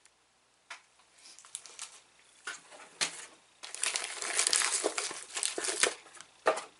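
Crinkling of plastic snack wrappers as wrapped snacks are handled and taken out of a cardboard snack box. It starts as scattered crackles and turns into a dense run of crinkling a little past halfway, with one more short crackle near the end.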